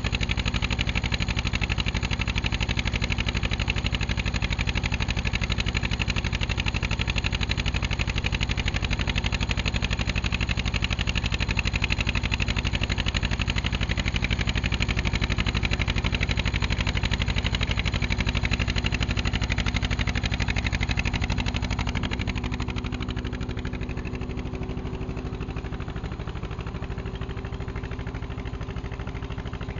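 Hanomag R16 tractor's diesel engine running steadily under load while pulling a trailed plough, heard close up from the driver's seat. It turns somewhat quieter about three-quarters of the way through.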